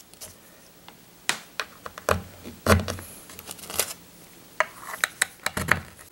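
Scattered light clicks and taps as wooden dowels and metal cam-lock bolts are pushed into pre-drilled holes in a particleboard furniture panel, with hands handling the small parts.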